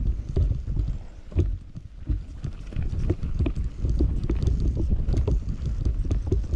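Wind buffeting the microphone over the rumble of the Commencal Meta Power SX e-mountain bike's tyres on a dirt trail, with frequent sharp rattles and knocks from the bike over bumps. The rumble eases briefly about one and a half seconds in.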